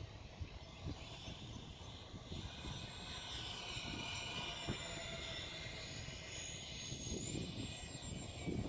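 The electric motors and propellers of an Avios C-130 Hercules RC model in flight: a high, multi-toned whine that swells as it passes about midway and then eases off.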